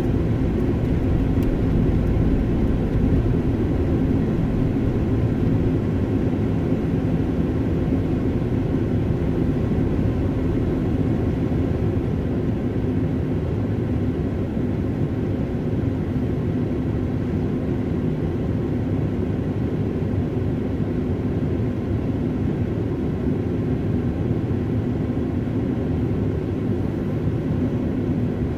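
Steady low rumble of a car's engine and tyres heard from inside the cabin while driving slowly in city traffic, a little quieter after the first few seconds.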